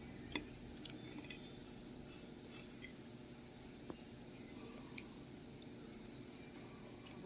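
Faint soft, wet squishing mouth sounds of fresh sugar apple (atis) pulp being eaten, with a few small sharp clicks.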